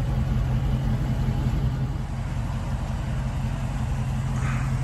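Dodge Charger Scat Pack's 392 Hemi 6.4-litre V8 idling steadily, a low even hum.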